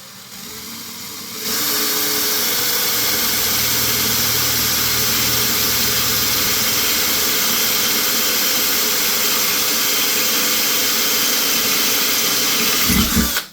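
Electric drill boring a hole through the metal leg of a pottery wheel: it starts quieter as the bit bites, runs steadily at full speed from about a second and a half in, and stops abruptly near the end once the bit has gone through.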